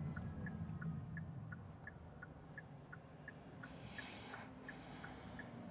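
Car turn-signal indicator ticking steadily, about three times a second, over faint road rumble, with a brief hiss about four seconds in.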